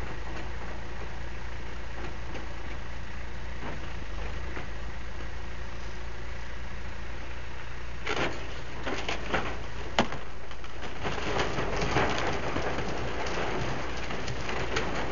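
Backhoe engine running steadily; from about eight seconds in, several sharp knocks and then a dense crackling crunch as material breaks up.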